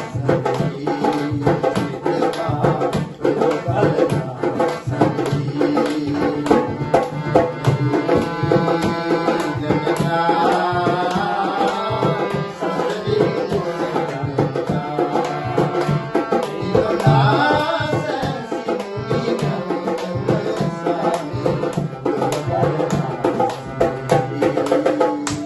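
Music of an old Sinhala song: a tabla-style hand drum plays a quick, steady rhythm under a pitched melody line.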